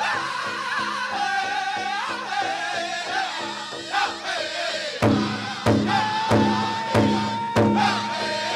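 Pow wow drum group singing a chicken dance song in high, gliding voices over a big drum. About five seconds in, the drumbeats turn loud and heavy, roughly a beat and a half per second.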